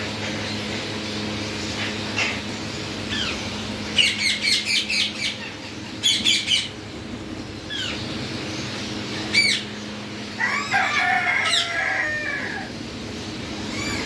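Indian ringneck parakeets calling in an aviary with sharp, shrill squawks: a quick run of about eight calls about four seconds in, a few more around six seconds and single calls here and there. About ten seconds in comes a longer, lower warbling call lasting about two seconds, over a steady low hum.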